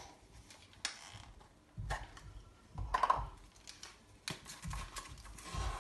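Scattered light clicks and taps with a few dull thumps, from kitchen utensils and bowls being handled.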